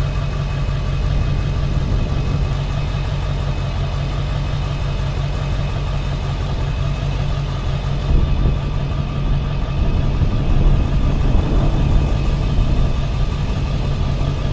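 An engine idling steadily: an even low hum with a faint steady whine above it, and some louder irregular knocks and rustling from about eight seconds in.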